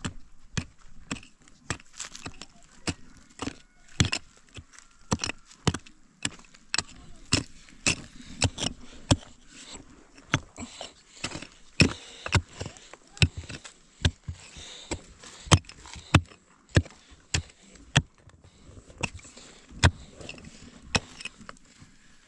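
A short-handled pick striking stony soil again and again while digging a pit, with dirt and stones scraping and shifting between blows. The strikes come irregularly, about one or two a second.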